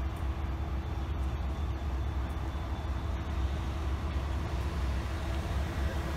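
CSX diesel freight locomotives, a GP38-2 leading a GP40-2, idling: a steady low rumble with a faint steady hum above it.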